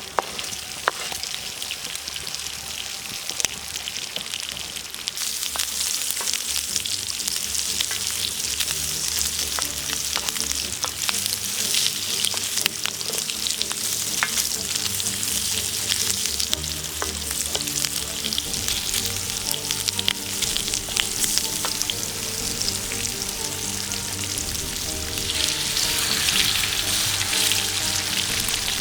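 Food sizzling and frying in a pan over a campfire: a dense hiss with scattered sharp crackles, growing louder about five seconds in and again near the end. Soft background music runs underneath.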